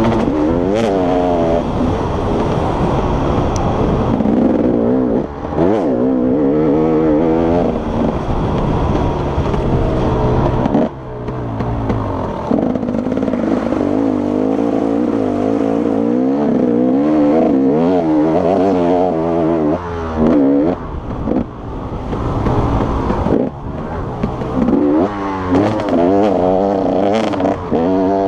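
Enduro dirt bike engine, heard close up from on the bike, revving up and down again and again as the throttle opens and closes, with its pitch climbing in repeated sweeps.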